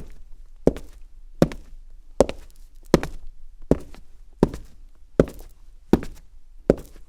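Footsteps walking at a steady, even pace on a hard surface, about ten steps with one every three quarters of a second. Each step is a quick double knock.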